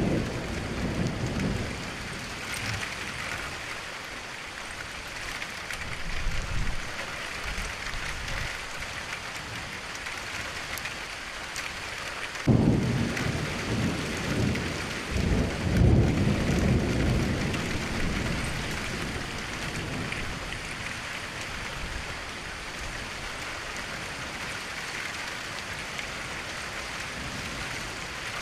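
Heavy rain falling in a steady hiss, with deep low rumbles over it. The loudest starts suddenly about twelve seconds in and rolls on in swells for several seconds.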